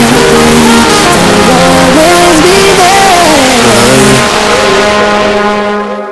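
Bass-boosted instrumental outro of a hip-hop track: a gliding melody over heavy bass, with no vocals. It fades out from about four seconds in, and the bass cuts off near the end.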